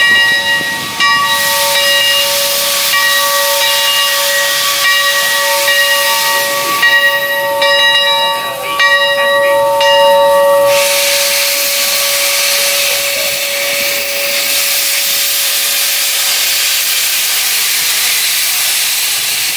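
Steam locomotive (a replica Central Pacific 4-4-0) letting off steam: a continuous hiss with several steady whistling tones that break off and come back over the first half. About halfway through, a stronger, fuller hiss takes over as steam jets from the open cylinder cocks.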